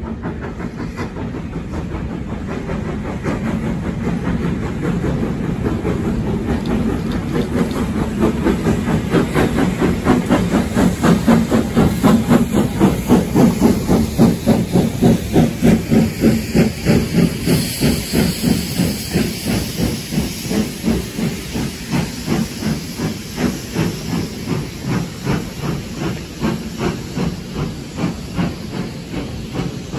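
Steam locomotive, L&YR 0-6-0 No. 52322, working hard up a 1 in 36 gradient with a train of coaches, its exhaust beating in a fast, steady rhythm. The beats are loudest as the engine passes about 12 to 14 seconds in, then ease as the coaches roll by over the rail joints.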